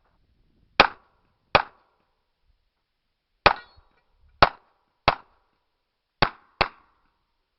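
Revolver shots fired in a practical-shooting stage: seven sharp reports, two in quick succession, then a pause of about two seconds, then three more and a final close pair.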